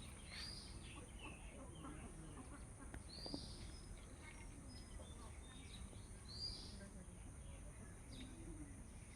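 A bird chirping three times, about three seconds apart, with fainter bird calls over steady background noise.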